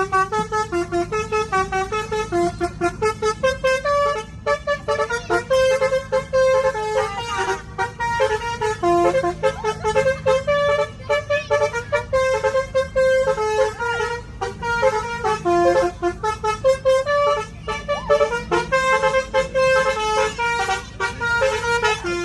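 Basuri telolet multi-tone musical horn playing a fast tune, note after note changing several times a second, over the steady drone of a vehicle running on the road.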